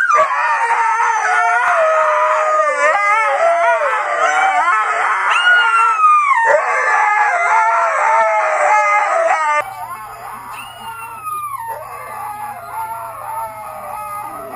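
Two huskies howling together in long, wavering, overlapping howls. About ten seconds in, this gives way to a boxer dog howling more quietly over a steady low hum.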